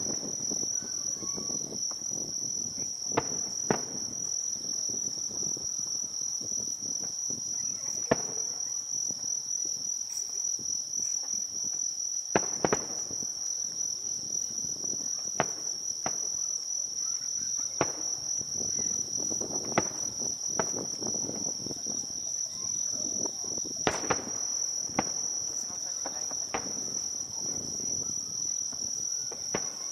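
Fireworks bursting in a scattered string of sharp bangs, some in quick pairs, over a steady high chirring of crickets.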